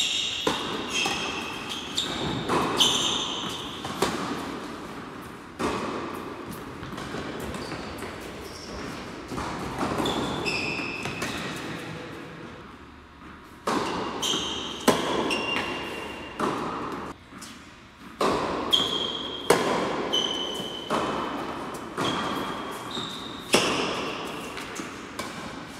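Tennis rally on an indoor hard court: racket strokes and ball bounces ring out one after another, each echoing in the hall, with short high squeaks of sneakers on the court. Play pauses for a moment near the middle, then resumes.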